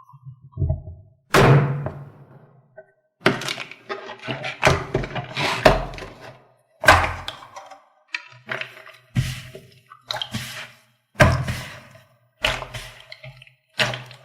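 A series of sharp thuds and knocks, about one a second, each with a short ringing tail, over a low hum.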